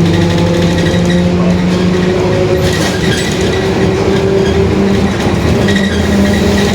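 Mercedes-Benz OF-1721 city bus under way: engine and drivetrain running, with a growling differential whose whining tones shift and slowly rise in pitch with road speed.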